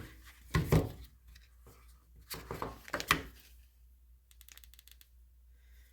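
Foam packaging insert being handled, rubbed and rustled in bursts as the flashlight is pulled from it, with a quick run of small clicks about four and a half seconds in.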